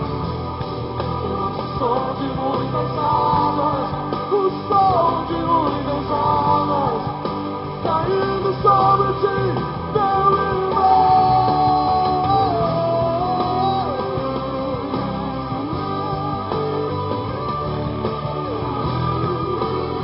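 Worship rock band playing, with guitar and a melody line that slides between held notes.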